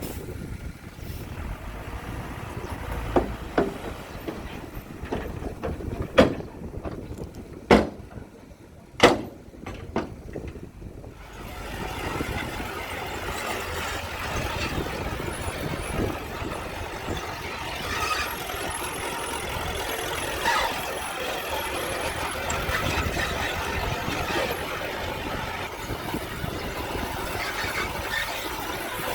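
Heavy earthmoving machinery working: a diesel engine running low, with several sharp metal clanks in the first ten seconds, then louder, busier machine noise with high squeaks from about twelve seconds on.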